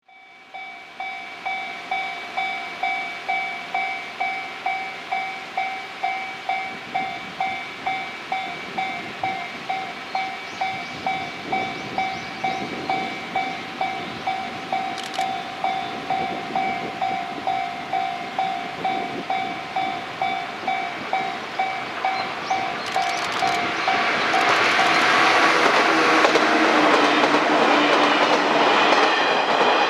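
A railway level-crossing alarm dings steadily, about one and a half times a second. Then a Shinano Railway 115-series electric train passes, growing loud from about 24 s in and drowning out the alarm.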